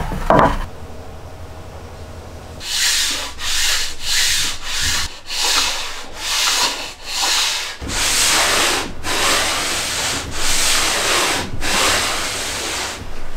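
Plywood crosscut sled sliding back and forth across a wooden saw table, wood rubbing on wood in repeated strokes about two a second, after a knock near the start as it is set down.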